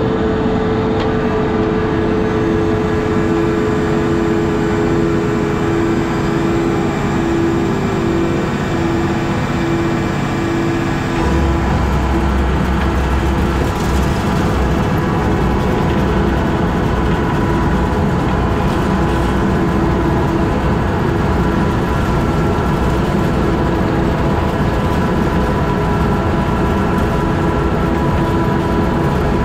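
Tractor-drawn belt hay merger running in the field, its pickup reels and conveyor gathering a windrow of cut hay, with a steady loud mechanical drone. A whine in it drops in pitch about eight to eleven seconds in, and a deeper hum comes in at about eleven seconds.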